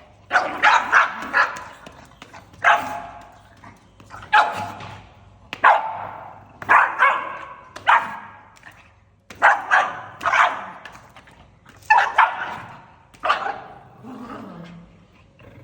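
A pug barking repeatedly in short, sharp barks, often two or three in quick succession, with brief pauses between the groups.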